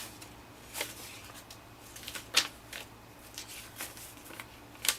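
Loose paper pages and cards being handled and shuffled: short, scattered rustles and taps, the loudest about halfway through.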